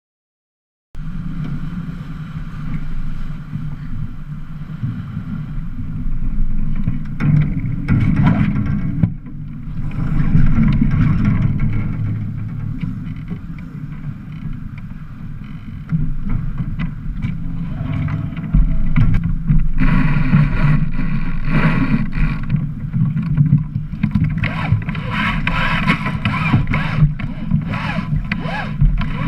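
Under way on a racing sailboat: a steady rush of wind on the microphone and water along the hull, with irregular clicks and rattles from lines and deck gear while the sails are worked. The first second, over a title card, is silent.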